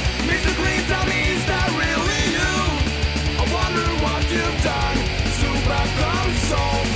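Punk rock music playing with a steady drum beat and an instrumental melody of bending notes, no singing.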